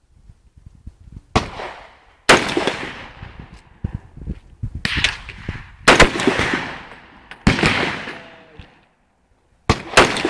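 AR-15-style rifle firing single shots, about six or seven, unevenly spaced a second or two apart, the last two in quick succession near the end. Each shot rings out with a tail of about a second.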